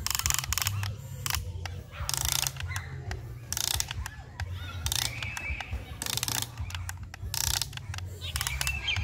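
Huina remote-control excavator's electric motors and gearboxes grinding in about ten short bursts as the boom and bucket dig into sand. A steady low hum runs underneath.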